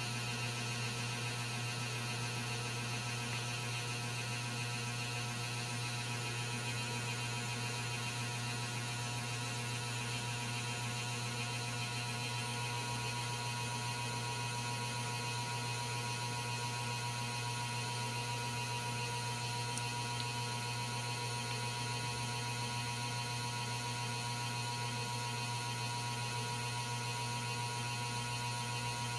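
Steady low electrical hum with faint steady higher tones, unchanging throughout.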